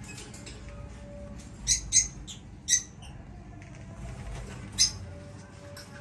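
Caged lovebirds calling: four short, high-pitched chirps, three of them close together around two seconds in and one more near the end.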